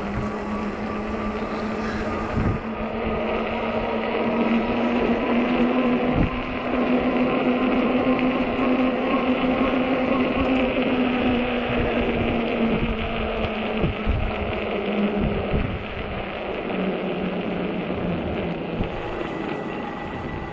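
Ecotric 48 V fat-tire e-bike under way on pavement: a steady electric whine from the hub motor and fat tyres, rising a little in pitch as the bike speeds up and stepping down as it slows near the end. Road and wind noise run underneath, with a few knocks.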